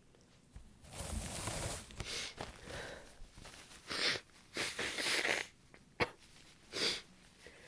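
A woman with a cold sniffling through a congested nose: a longer breath about a second in, then several short sniffs.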